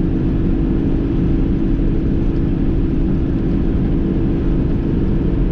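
Semi truck under way: a steady, unchanging rumble of the diesel engine and road noise with a constant hum, as heard from inside the cab.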